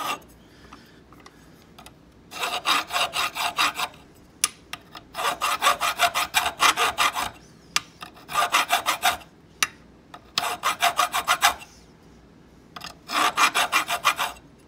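Flat hand file rasping across the end of a metal bit key blank held in a vise, in five runs of quick back-and-forth strokes, about five or six a second, with short pauses between runs. The key is being filed down to match its twin.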